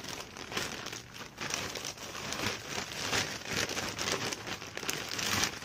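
Thin plastic parcel packaging crinkling and rustling irregularly as a courier pouch and the plastic bag inside it are handled and unwrapped by hand.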